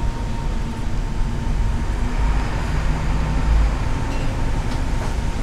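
Steady low rumble and hiss with a thin constant whine above it, like machinery or ventilation running.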